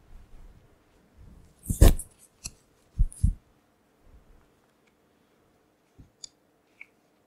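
Handling noises: a sharp clatter about two seconds in, then two dull thumps about a second later, followed by a few faint, scattered clicks.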